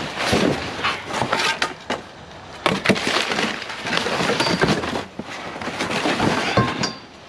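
Scrap metal and debris being shifted and handled in a dumpster: a quick string of sharp clanks, knocks and clinks with rattling and scraping between them.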